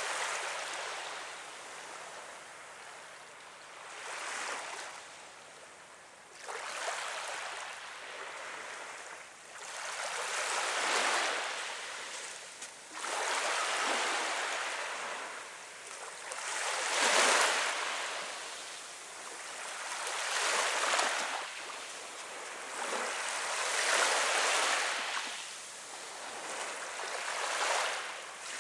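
Small waves lapping onto a sandy shore of a calm sea: a soft rush of water that swells and fades every three to four seconds.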